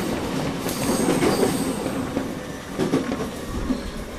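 JR East E231 series 500 train running, with its Mitsubishi IGBT VVVF drive: a rolling wheel-and-rail rumble with steady motor and inverter tones, a few rail-joint clicks, and a thin high wheel squeal about a second in.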